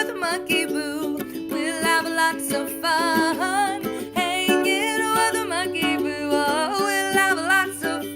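Background music led by ukulele, with a melody line that slides up and down in pitch over steady plucked chords.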